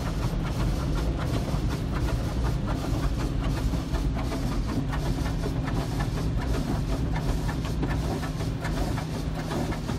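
Automatic car wash water jets spraying and pattering on the car's glass and body, heard from inside the car, over a steady low hum.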